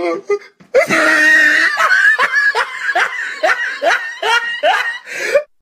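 A person laughing: a loud opening burst about three-quarters of a second in, then a long run of short repeated 'ha' pulses, about three a second, stopping just before the end. A meme laugh sound effect.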